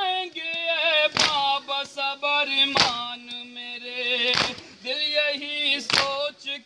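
Male voices chanting a nauha (Urdu mourning lament) in unison, with sharp beats of matam, open-hand chest-beating, landing together about every second and a half in time with the chant.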